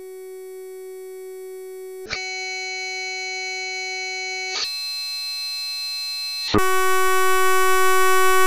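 Background music: one sustained synthesizer note held on a single pitch. Its tone colour switches abruptly about every two seconds, getting brighter and louder with each step.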